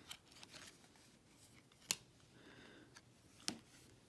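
Trading cards being handled and flipped through by hand: quiet rustling of card stock with a few sharp clicks. The loudest click comes about two seconds in and another about three and a half seconds in.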